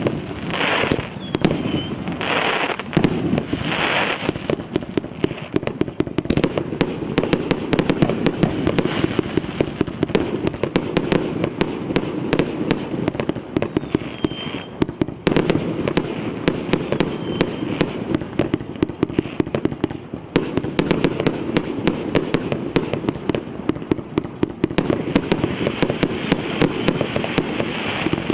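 A 222-shot combination firework cake (0.8 to 1.5 inch tubes) firing in a rapid, unbroken barrage of launch shots and aerial bursts. In the first few seconds there are hissing rushes about once a second between the shots.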